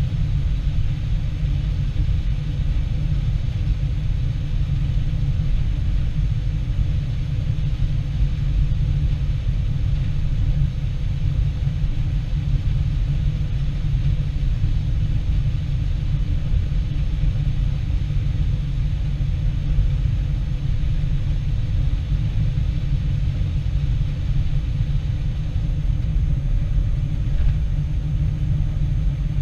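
Combine harvester running steadily: a heavy, even low rumble that does not change.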